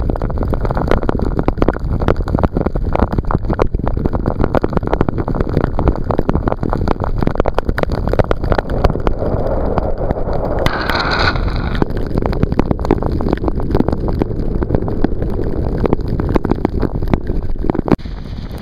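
Wind buffeting the microphone of a camera held out of a fast-moving van's window, over the rush of tyres on a wet road. A brief sharper hiss comes a little over ten seconds in.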